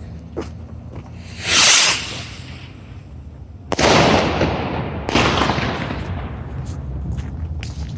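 Firework rockets going off: a short, loud whoosh of a rocket launching about one and a half seconds in, then two sudden loud bangs near four and five seconds in, each trailing off over a second or more.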